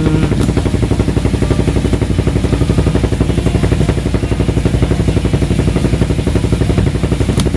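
A fishing boat's engine running steadily, with a rapid, even chugging.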